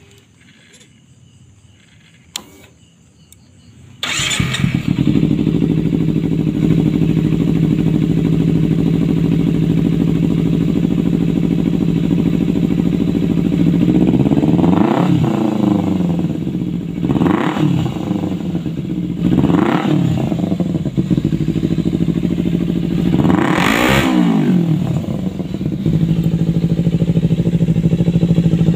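Kawasaki Ninja 250 FI's parallel-twin engine through a Leovince aftermarket exhaust, starting about four seconds in after a single click, then idling steadily. It is revved four times in the second half, each rev rising sharply and dropping straight back to idle.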